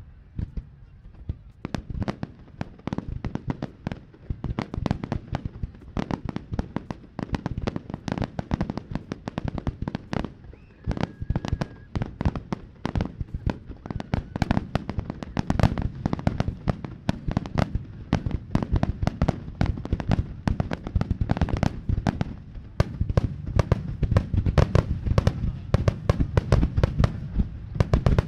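Fireworks display: aerial shells bursting in rapid succession, many bangs a second with a low rumble under them. The barrage grows denser and louder near the end.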